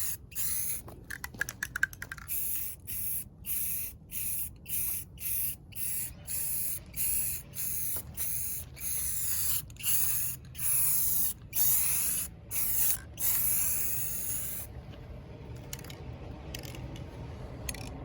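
Rust-Oleum gloss black spray paint aerosol can spraying in short bursts about a second apart, each a loud hiss. The spraying stops about three-quarters of the way through.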